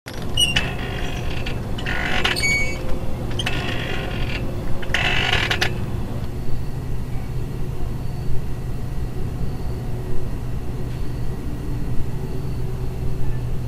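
Playground swing's metal chains and hangers creaking as it swings: four squeaks about a second and a half apart, which stop about six seconds in. A steady low hum runs underneath.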